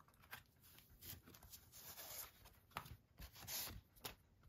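Glossy card-stock art cards handled by hand: faint rubbing and sliding of card on card, with a few light ticks and a slightly longer swish about three and a half seconds in.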